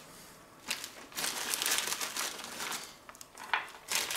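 Plastic pouch of chestnuts crinkling as gloved hands squeeze the chestnuts out of it, in irregular rustling bursts with a few sharper crackles near the end.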